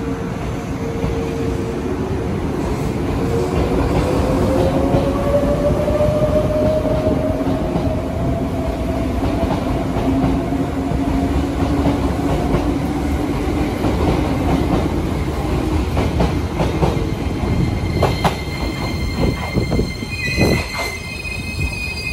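Izu Kyuko 2100 series 'Resort 21' electric train pulling out along the platform, its motor whine rising in pitch as it picks up speed over a steady rumble. Near the end come a few sharp rail-joint clacks and a high wheel squeal as the last cars pass.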